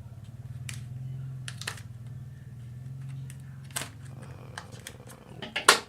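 A RAM module's retail packaging being opened by hand: a few scattered sharp clicks and taps of plastic and cardboard, the loudest just before the end, over a low steady hum.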